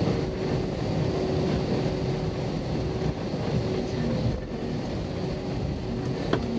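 Cabin noise inside an Airbus A320-232 taxiing: a steady rush of engine and air-conditioning noise with a steady hum through it, and a single sharp click near the end.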